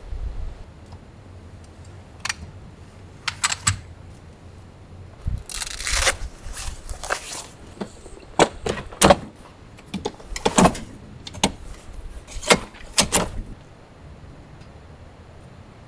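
An aluminium telescoping ladder being handled and extended: a few light clicks about three seconds in, a scrape and rustle about six seconds in, then six sharp metallic clacks, roughly in pairs, as its sections slide out and lock.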